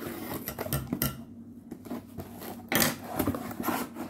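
Cardboard shipping box being pulled open by hand: flaps and tape rustling, scraping and clicking, with a louder tearing burst about three seconds in.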